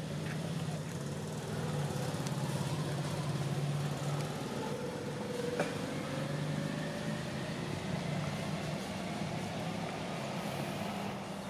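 A motor vehicle engine running steadily as a low hum, with a faint whine that slowly rises in pitch in the middle and a single sharp click just past halfway.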